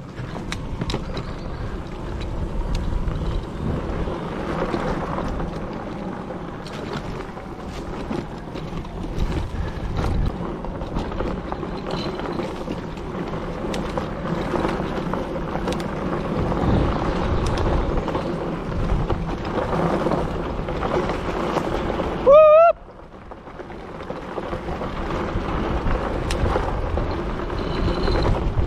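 Wind buffeting the microphone and tyres rumbling over a packed dirt trail as an electric bike is ridden at speed, with scattered clicks and knocks from bumps. About three quarters of the way through, a short, loud rising tone cuts in, then the riding noise drops away and builds again.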